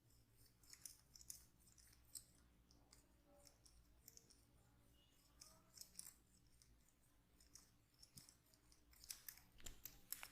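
Faint, scattered clicks and crackles of hands working over the head and hair during an ASMR head massage, with a denser cluster near the end.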